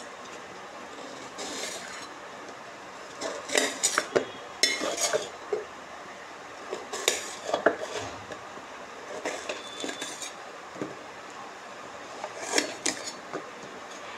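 Steel pots, lids and utensils clinking and knocking as they are handled, in a few short clusters of sharp clinks a couple of seconds apart.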